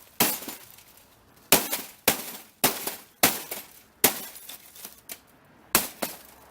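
A 50-inch plasma TV's glass panel being smashed by repeated blows: about seven sharp strikes, each followed by a short clatter of breaking glass.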